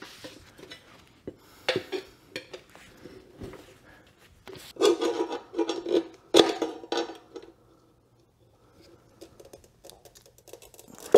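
Metal tire irons clanking and scraping against a dirt bike wheel rim while the rear tire's bead is levered on, a run of irregular clinks and rubs that is loudest about halfway through, then fades to a few light ticks.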